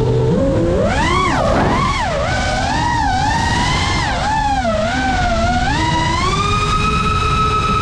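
FPV quadcopter's brushless motors whining, the pitch swooping up and down quickly as the throttle changes, then holding a steady high whine over the last couple of seconds.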